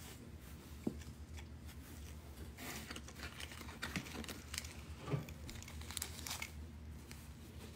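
Small plastic zip-lock bags crinkling as tumbled stones are handled in and out of them, mostly in the middle few seconds, with a couple of light sharp knocks, over a low steady hum.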